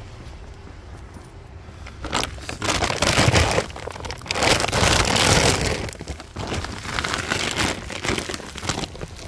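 Feed sacks rustling and scraping as they are handled and shifted, in several noisy bursts starting about two seconds in, the loudest in the middle.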